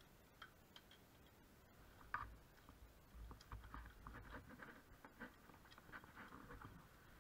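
Faint clicks and scraping of a hand tool working on a motorcycle exhaust silencer while its dB killer is being removed, with one sharper knock about two seconds in.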